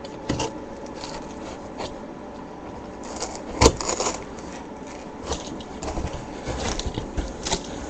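Cardboard being cut with an X-Acto knife and handled: intermittent scraping and crackling, with a sharp knock about three and a half seconds in.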